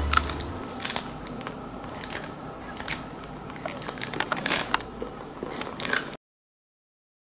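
A poodle biting and chewing a hand-fed piece of crisp white food: a run of irregular crunches and clicks that cuts off suddenly to silence near the end.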